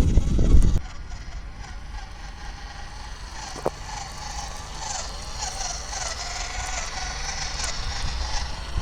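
Small electric motor and gearbox of a WPL B24 GAZ-66 RC truck whining in low range, its pitch wavering as it labours in loose sand. A loud low rumble stops a little under a second in, and there is one sharp click near the middle.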